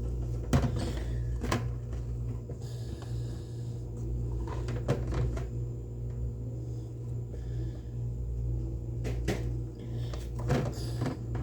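A spoon scraping and tapping against jars and a cup as a sweet spread is scooped out slowly: scattered light clicks and knocks, over a steady low hum.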